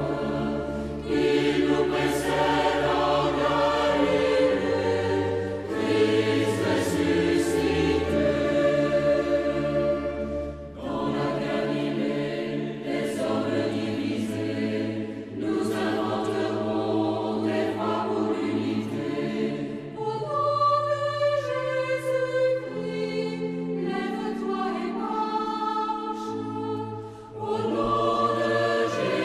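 Choir singing a Christian hymn of the Resurrection in slow phrases of held notes.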